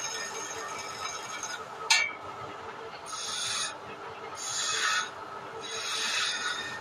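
A hand-held turning chisel scraping a spinning wooden spindle on a vertical wood lathe, in three hissing strokes of under a second each. The lathe's steady hum runs underneath, and there is one sharp click about two seconds in.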